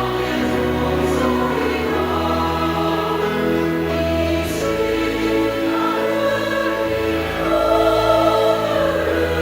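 Church choir singing a hymn in slow, long-held chords.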